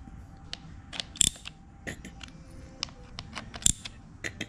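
Hand socket ratchet clicking in short irregular runs as the screws holding an electric cooling fan to its bracket are tightened, with a few sharper knocks of tool and metal among the clicks.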